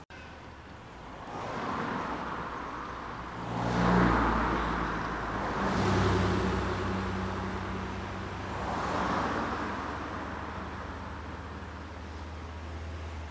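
Several cars drive past one after another, each pass a swell of tyre and engine noise that rises and fades. The loudest pass comes about four seconds in, with a low engine note carrying on underneath.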